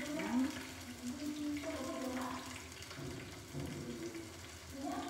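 Breadcrumb-coated pork strips frying in hot oil in a small pan, with a steady sizzle.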